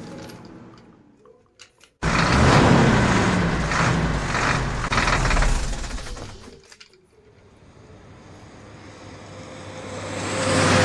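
Vehicle engine noise with a low steady hum. It starts abruptly about two seconds in, fades out around seven seconds, then swells again near the end.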